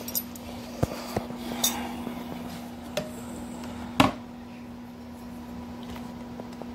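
Countertop toaster oven door being opened: a few light clicks and knocks, then one loud metal clunk about four seconds in, over a steady low hum.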